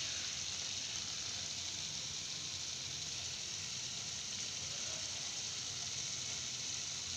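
Summer squash (chappan kaddu) sabzi sizzling steadily in the pan as it finishes cooking in its masala.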